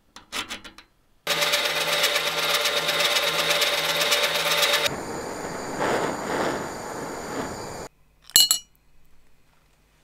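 A small screw clicks into a lathe collet, then the lathe runs for about three and a half seconds with the screw spinning in it. A gas torch hisses for about three seconds as it heats the screw, then there is a brief sharp sizzle as the hot screw is dropped into a liquid bath.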